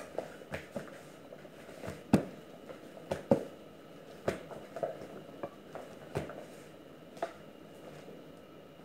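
Gloved hands kneading soft, sticky pizza dough on a plastic-covered table: irregular slaps and squelches of the dough against the surface, a couple of them louder, thinning out near the end.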